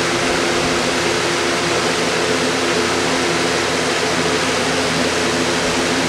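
Lasko 3733 20-inch box fan running on its high speed setting: a steady rush of air over a constant motor hum.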